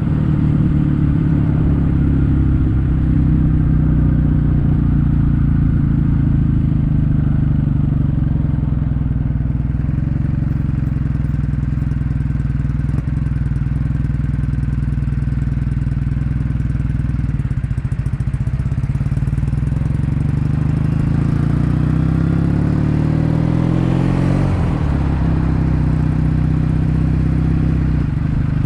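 Kawasaki W800's air-cooled parallel-twin engine running through a stainless-steel Cabton-style silencer while riding at a fairly steady speed. The exhaust note changes pitch about three-quarters of the way through, then steadies again.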